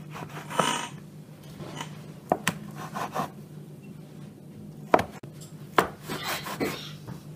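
Wavy crinkle-cut knife chopping a rolled pastry log into pieces on a wooden board: several sharp knocks of the blade striking the board, the loudest about five seconds in, with soft scrapes between. A steady low hum runs underneath.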